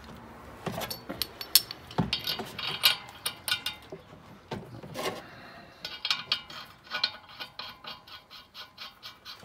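Metal clicks and clinks as a nut is threaded by hand onto the crankshaft stud of a rotary mower's blade disc. The clicks are irregular at first, then a quick run of ticks comes about two-thirds of the way in.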